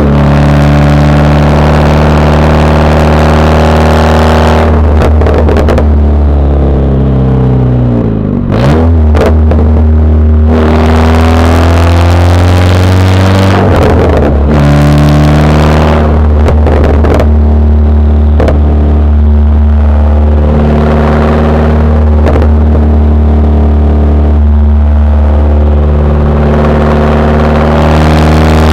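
Exhaust of a 2010 Volkswagen CC's turbocharged 2.0-litre four-cylinder with a full straight-pipe, heard while the car is driven. The note falls and then climbs again a couple of times as the car lifts off and accelerates.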